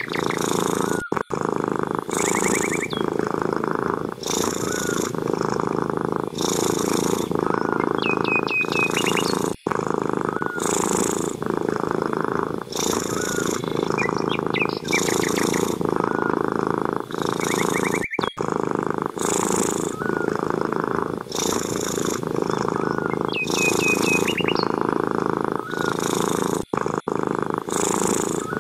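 A cat purring steadily and loudly, swelling and easing with each breath, with short high chirps every several seconds. The whole pattern repeats about every eight and a half seconds.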